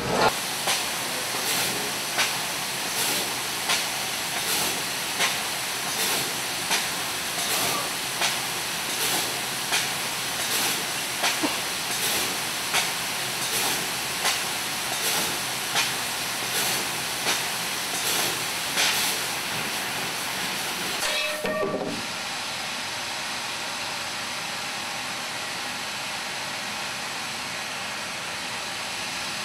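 Metal-cutting machinery in a fabrication shop running with a steady hiss and a sharp stroke about every three-quarters of a second. About 22 seconds in the strokes stop and a steadier, slightly quieter hiss carries on.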